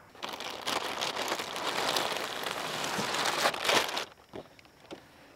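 Thin plastic packaging bag crinkling and rustling as hands rummage in it, stopping about four seconds in.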